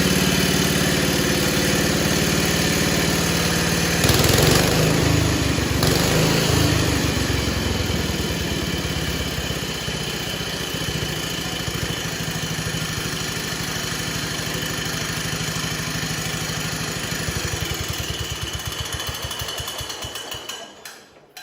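1970 140 H3 garden tractor engine running steadily. It gets louder for about two seconds about four seconds in, then settles. Near the end it is shut off and slows to a stop.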